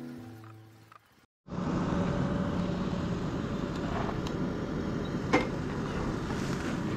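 Background music fading out in the first second, then after a brief silence a motorcycle engine running steadily at idle, with one sharp click a little past the middle.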